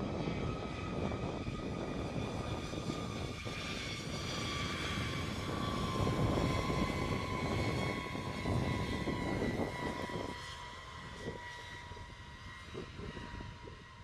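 B-52H Stratofortress turbofan engines whining and rumbling as the bomber rolls out on the runway after landing, its drag chute deployed. The whine falls slowly in pitch, and the rumble drops away about ten seconds in.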